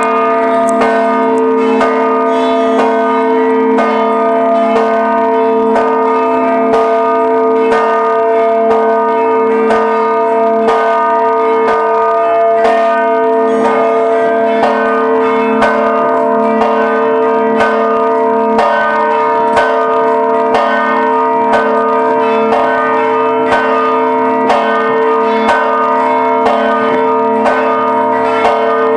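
Church bells ringing a procession peal: several bells struck in a fast, even, continuous pattern, their tones ringing on and overlapping into a steady hum under the strokes.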